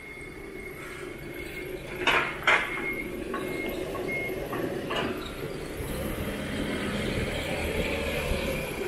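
Forklift at work during pallet loading: its engine running, two sharp metallic clanks about two seconds in, a few short high beeps just after, and the engine growing louder in the second half.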